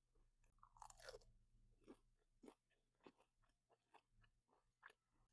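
A person chewing food close to the microphone, faint, with irregular soft crunches and wet mouth clicks.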